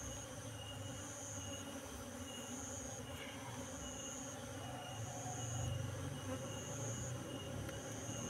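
An insect chirping in steady high pulses, each about half a second long and about once a second, over a low hum from Asian honeybees (Apis cerana) buzzing around their colony as it is handled.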